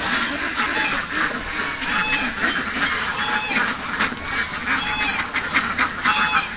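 A large flock of domestic ducks quacking continuously, many calls overlapping.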